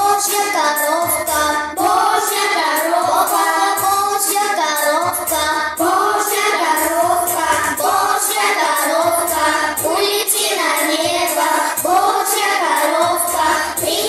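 A children's ensemble singing a pop song together into microphones over a backing track with a steady beat.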